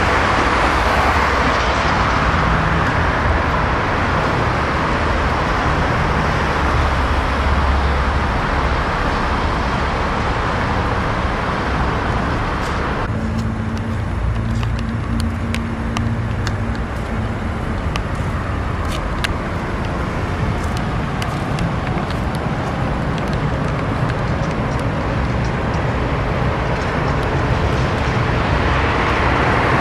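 City road traffic, a steady rushing hiss of passing vehicles. About halfway through, the hiss thins suddenly and a low engine hum holds for a few seconds.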